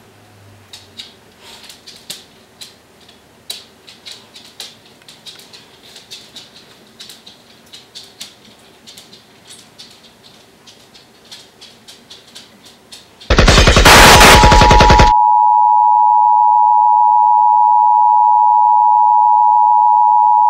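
Faint irregular ticks and clicks, then about 13 seconds in a sudden, very loud burst of rapid crackling that lasts under two seconds. It cuts to a steady high test tone of the kind broadcast with colour bars.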